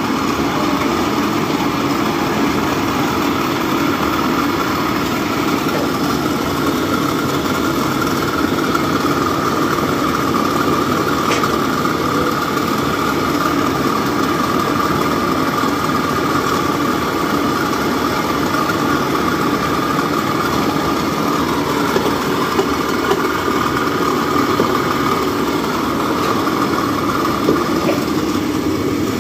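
Commercial kitchen machinery running with a steady, loud, even drone that does not change.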